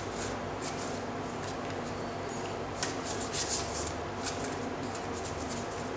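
A deck of oracle cards being shuffled by hand: soft, irregular flicks and rubbing of card against card, with a busier run of flicks in the middle.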